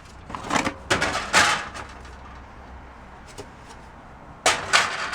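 Items being handled and set down while rummaging through a storage tote: a cluster of clattering knocks, a quiet stretch, then another cluster of knocks near the end.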